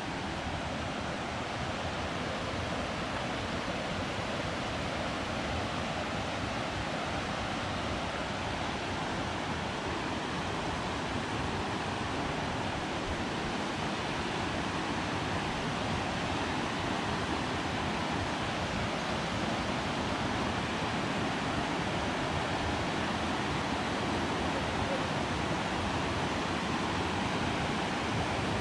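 Steady, even rush of fast-flowing creek water through a canyon, with no breaks.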